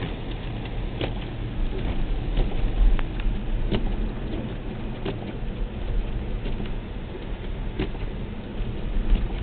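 Car driving on a highway in a snowstorm, heard inside the cabin: a steady low rumble of road and engine noise, with sharp clicks about every second and a half.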